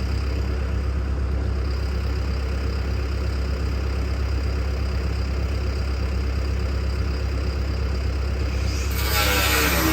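An engine idling steadily, with a strong low rumble. Music comes in near the end.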